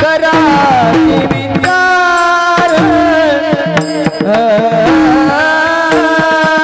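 Warkari kirtan singing: male voices carry a devotional melody in long held, gliding notes over a steady drone note, with small brass hand cymbals (taal) clashing in time and a drum.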